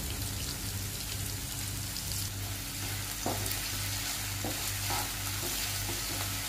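Diced potatoes and onions sizzling steadily in oil in a nonstick frying pan while being stirred with a wooden spatula, with a few short scrapes of the spatula against the pan.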